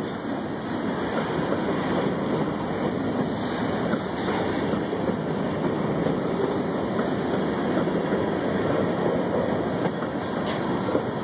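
Freight train cars rolling past at close range: a steady rumble of steel wheels on the rails from covered hoppers and a tank car.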